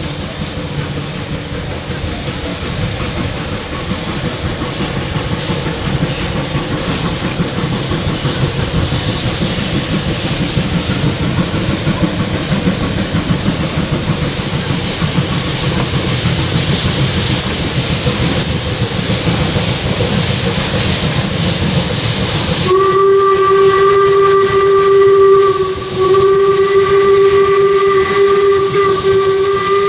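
A 4-4-0 steam locomotive working toward the listener, its running noise growing steadily louder. Then its steam whistle sounds two long blasts, the second running on.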